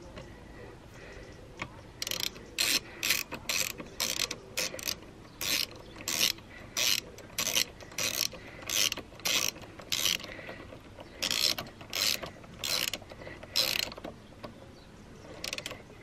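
Socket ratchet clicking as it is swung back and forth, tightening a bolt on a motorcycle's rear brake caliper: about twenty short bursts of pawl clicks, one every half-second or so, starting about two seconds in and thinning out near the end.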